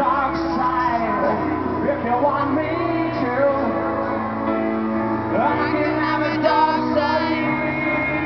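Live piano rock song with a man singing, over low sustained notes, heard from the audience.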